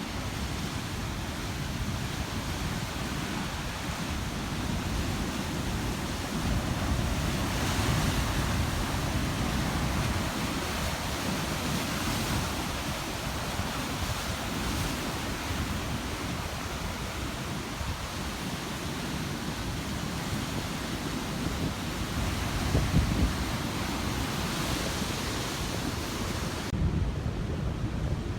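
Heavy ocean surf breaking on a rocky shore in stormy weather, a continuous churning roar with waves crashing harder around 8, 12 and 23 to 25 seconds in. Wind rumbles on the microphone throughout.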